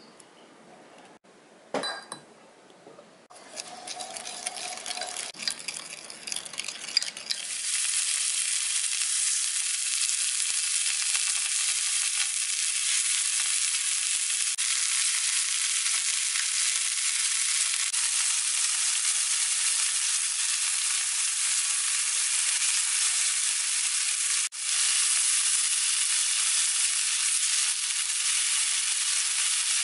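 A light clink near the start, then beef-and-vegetable rolls frying on a hot griddle: a sizzle that builds over a few seconds and settles into a steady, loud hiss.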